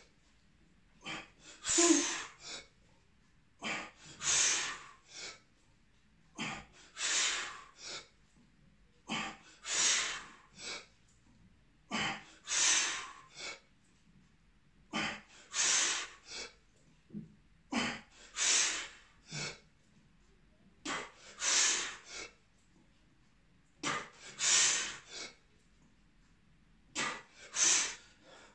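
A man's hard, forceful breathing under exertion, in a steady rhythm: a few short breaths, then one longer, louder blast about every three seconds, paced to each one-arm overhead press of a 28 kg kettlebell.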